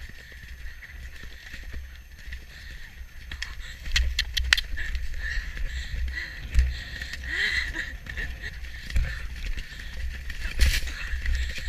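A horse being ridden at speed, heard from a camera on its head: a low, uneven buffeting of wind on the microphone mixed with the thud of hooves, growing louder about halfway through, with a few sharp clicks and a loud knock near the end.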